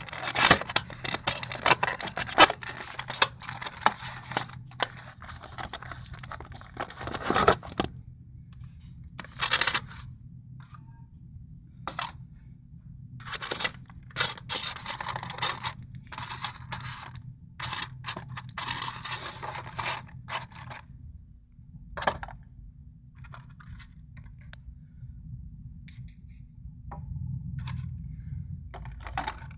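Model airplane's cardboard box and paper packaging being opened by hand: repeated scraping, rustling and tearing, busiest for the first eight seconds, then in scattered bursts.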